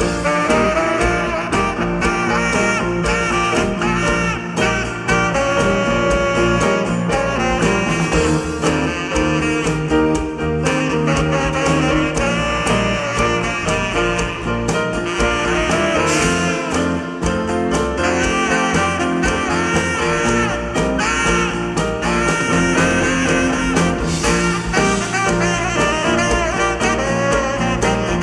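Live band playing an instrumental passage with a steady beat and no singing.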